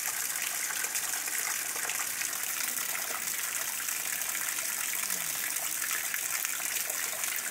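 Heavy rain falling steadily, with runoff pouring off a roof edge and splashing onto waterlogged ground.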